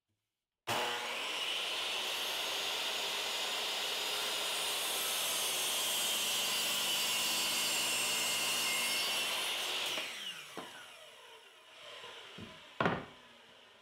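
Hitachi 10-inch sliding compound miter saw starting suddenly about a second in and running under load as it cuts a miter through wooden molding, then the motor winding down with a falling whine. A single knock near the end.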